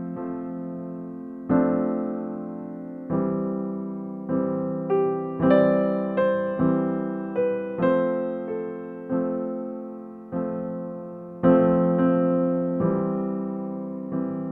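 Background piano music: slow notes and chords struck about once a second, each left to ring and fade.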